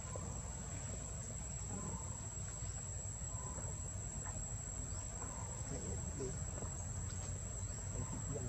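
Insects buzzing in one steady, unbroken high-pitched drone, over a low outdoor rumble with a few faint, brief calls.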